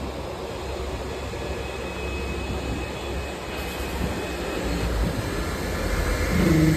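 Steady rushing whir of an automatic cotton candy vending machine's motor and fans, growing slightly louder toward the end, with a brief low hum just before the end.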